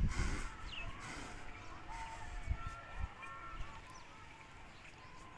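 Birds calling in the background: a few short falling chirps and some brief held notes, with a couple of low knocks about two and a half and three seconds in.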